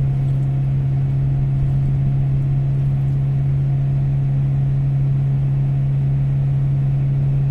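Hyundai i10's engine running and its heater blower on high, heard inside the cabin as a steady hum.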